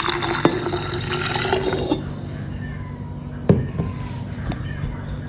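Hot water poured from a mug into a jug, the filling sound rising slightly in pitch and stopping about two seconds in. A couple of light knocks follow.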